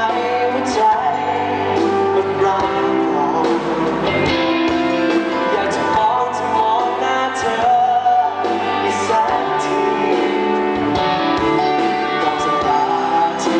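A male singer singing a pop song live with a band of drums, bass guitar, electric guitar and keyboard.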